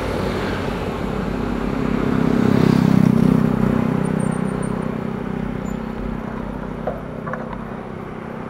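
Road traffic passing close by: a motor vehicle's engine grows louder to a peak about three seconds in and then fades, over a steady background of traffic noise. A few small clicks come near the end.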